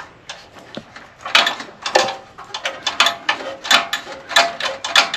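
A run of sharp metallic clicks and rattles, about three a second, from a small mechanism being worked by hand.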